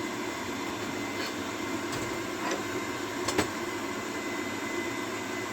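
Steady hum of a small coal forge's air blower, with a few light metal clicks and one sharper knock about three and a half seconds in.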